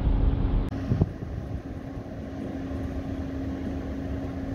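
Steady low engine hum held at one pitch. There is a heavy low rumble in the first moment and a single knock about a second in.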